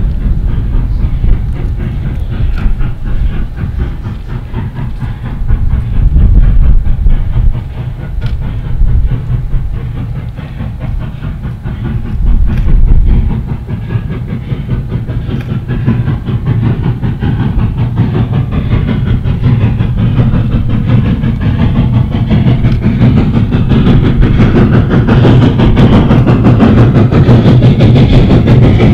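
Nevada Northern Railway 2-8-0 steam locomotive No. 81 approaching under steam, its exhaust and running gear growing steadily louder through the second half as it nears. A low rumble swells and fades a few times early on.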